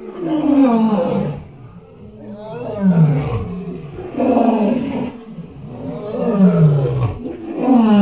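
Elephant calling: about five loud calls in a row, each about a second long and falling in pitch, with short pauses between them.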